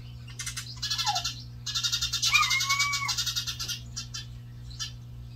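Eurasian tree sparrows chattering in two fast, rattling bursts, the second longer. A short whistled call rises and falls in the middle of the second burst.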